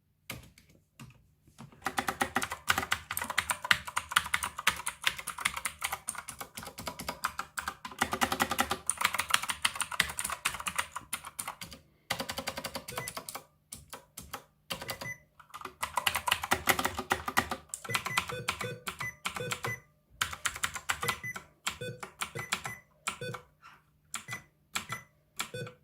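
Typing on a quiet-switch mechanical keyboard: fast runs of soft key clicks that break off briefly twice, then slower, more scattered keystrokes toward the end.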